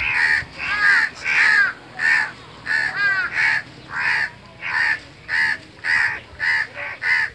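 Several house crows cawing loudly and without pause, about two harsh caws a second, the calls overlapping: the clamour crows raise when they gather around a dead or downed crow.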